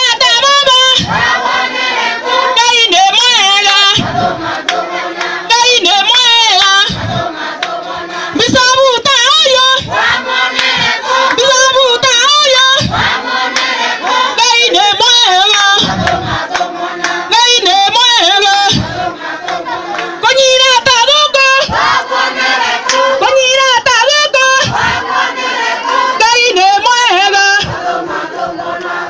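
A woman singing a lively song into a microphone while a group of voices sings along, in phrases of a couple of seconds with short breaks between them. A low thud recurs about every three seconds.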